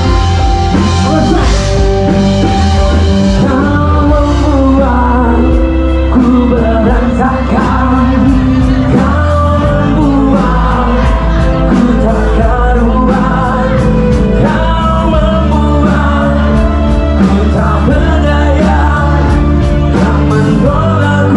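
A rock band playing a song with a lead vocal, drums keeping a steady beat over a bass line.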